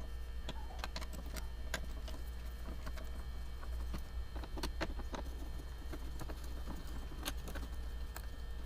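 Scattered light clicks and taps of a hand tool working out the Torx T30 screws that hold the truck's rear door handle, over a steady low hum.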